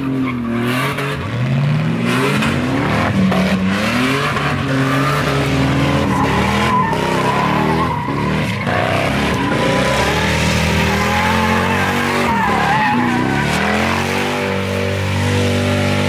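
A car doing donuts: its engine revs rise and fall over and over while the tyres squeal and skid on the pavement.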